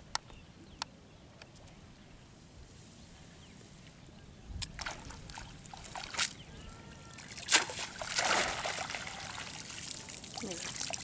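Water dripping, trickling and splashing off a wet cast net as it is hauled up out of a pond, starting about four seconds in and getting busier toward the end. A few sharp clicks come before it.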